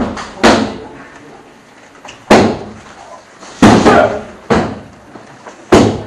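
Kicks and strikes smacking into padded kick mitts during full-contact mitt drills: about six sharp, loud smacks at uneven intervals, each with a short echo off the hard room.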